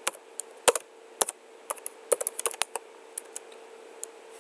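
Computer keyboard typing: irregular key clicks as a terminal command is entered, with a few louder taps in the first second and a half, over a faint steady hum.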